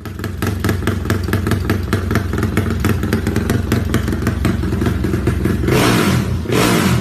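Yamaha Y15ZR (MX King 150 / Exciter 150) single-cylinder engine running through a modified aftermarket exhaust, with a rapid pulsing beat, then a brief rev about six seconds in.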